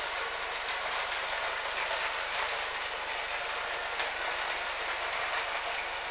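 Vintage Nikko Super Tanker radio-controlled truck's small electric motor and gearbox whirring steadily as it drives, with a single click about four seconds in.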